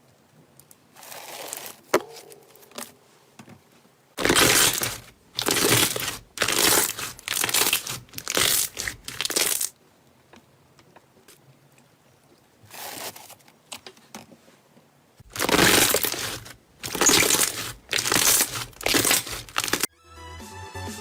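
Slime being squeezed and pressed by hand: short crackly, crinkly squishes about one a second, in two runs with a pause between.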